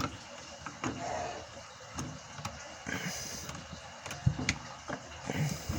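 Small clicks and knocks of needle-nose pliers and stiff copper wire being worked in a metal electrical box as bare ground wires are twisted together at an outlet, with a few duller thumps a little past four seconds in.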